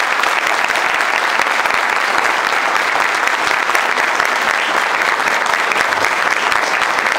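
Audience applauding, steady dense clapping throughout.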